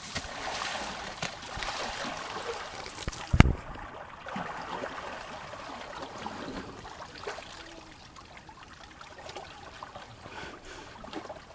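Water splashing and trickling as an Asian elephant and her submerged calf bathe in a shallow river, louder in the first few seconds and quieter after. A single sharp knock about three and a half seconds in.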